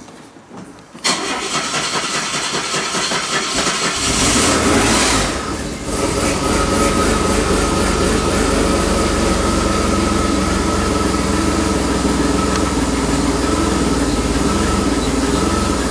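DeLorean DMC-12's PRV V6 engine cranked on the starter for about three seconds. It catches, flares up briefly, then settles into a steady idle on its newly replaced fuel pump. A thin, steady high squeak runs over the idle, which the owners suspect is a belt pulley.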